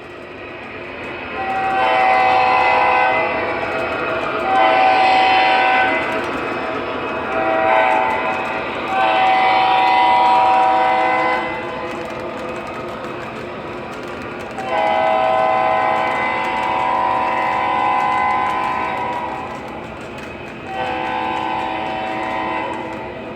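Sound system of an MTH ES44 model diesel locomotive sounding its multi-chime air horn through its speaker: two long blasts, a short one and a long one, the grade-crossing signal, then two more long blasts. A steady diesel engine drone runs underneath.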